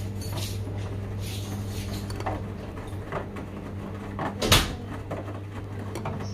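Washing machines running mid-wash with a steady low hum, overlaid by scattered clicks and one sharp knock about four and a half seconds in.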